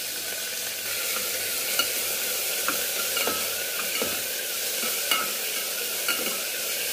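Onion and garlic sizzling in ghee in a pressure cooker while being stirred with a spatula, which scrapes and clicks against the pot about once a second.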